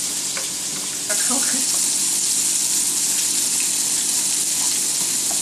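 Beef and vegetables sizzling on a hot electric tabletop griddle: a steady high hiss that gets louder about a second in.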